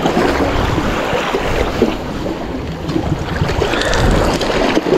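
Wind rumbling on the microphone over the steady wash of the sea.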